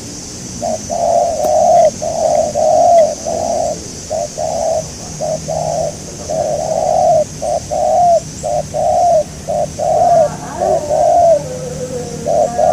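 Spotted dove cooing in a rapid, continuous run of short coos, over a steady high hiss.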